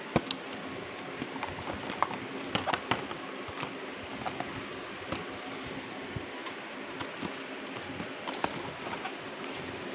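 Cardboard craft-kit boxes being handled and moved about by hand, giving scattered taps and clicks over a steady background hiss; the sharpest click comes right at the start, with a cluster of knocks about two to three seconds in.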